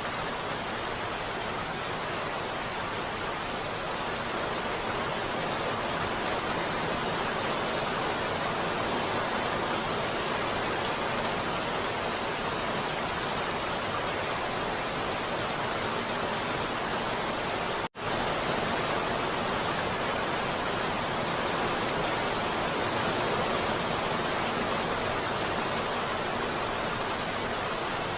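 Heavy rain falling steadily, an even unbroken hiss. It cuts out for an instant about two-thirds of the way through, then carries on unchanged.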